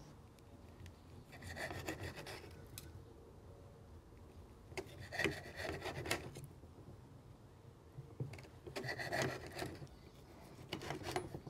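Knife sawing back and forth through a seared wagyu ribeye on a plate, cutting it into slices. The strokes come in about four short bouts.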